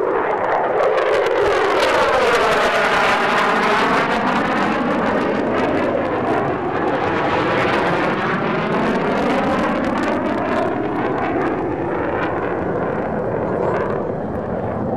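Loud jet noise from an F-15 Eagle fighter's twin turbofan engines as it flies past. It has a sweeping, phasing whoosh that falls and then rises in pitch as the jet goes by, and eases off slightly toward the end.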